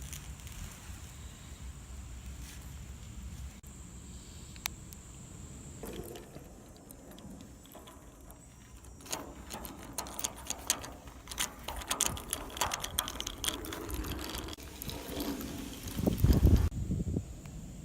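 Small hard objects being handled: scattered clicks, then a longer run of rattling and clicking, with a low thump near the end.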